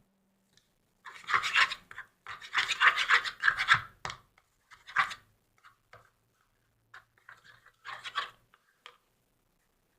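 Scraping and rubbing noises in several bursts, the longest lasting a second or two, with short scrapes and taps between them.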